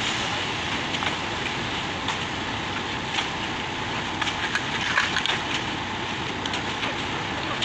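Rakes and shovels scraping and dragging through wet concrete, with irregular gritty scrapes and clicks, over the steady running of a concrete mixer truck.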